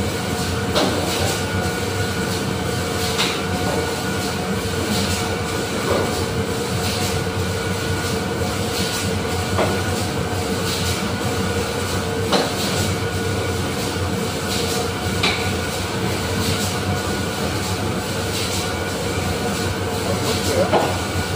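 Factory machinery running: a steady mechanical drone with a constant hum, broken every few seconds by a short knock.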